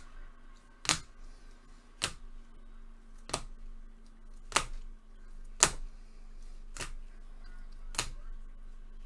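Trading cards being set down one at a time during a card-break recap: a sharp click a little over once a second, seven in all, over a faint steady hum.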